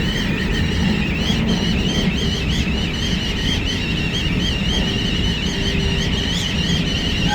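Interior running noise of a moving Hakodate Liner train: a steady low rumble, with a high-pitched squeal that wavers up and down in pitch throughout.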